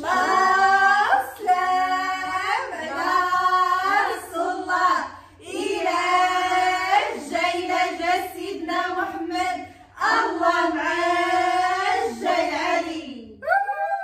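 A woman singing unaccompanied, in three long phrases of drawn-out, slowly bending notes.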